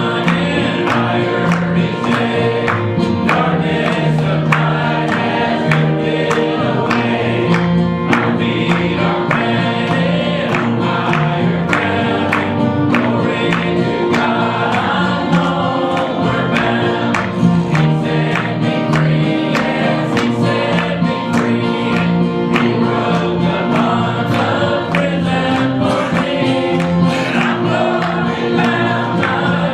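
Congregation singing a gospel hymn together, with instrumental accompaniment keeping a steady beat.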